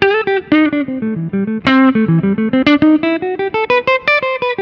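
Tokai ALS62 Gold Top Les Paul-style electric guitar with humbucker pickups playing a quick run of single picked notes, several a second, climbing in pitch in the second half. It is a demonstration of how the pickups respond to light picking dynamics.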